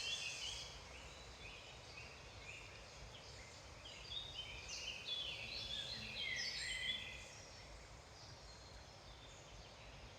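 A chorus of several woodland songbirds singing at once: overlapping short trills, chirps and whistled phrases. They are busiest at the start and again from about four to seven seconds in, then thin out. A steady low rumble runs underneath.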